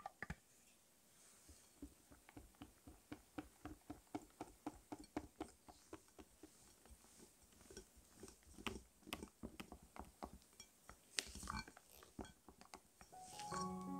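A mixing utensil stirring and folding creamy cheesecake batter in a glass bowl: faint, regular soft taps and scrapes against the glass, about two to three a second, with a few louder knocks late on.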